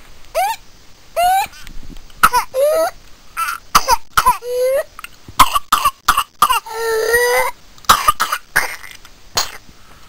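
A person coughing in a series of fits: short sharp coughs mixed with short high-pitched sounds that rise in pitch, and one longer held pitched sound about 7 seconds in. The pattern is like the coughing and whooping of whooping cough.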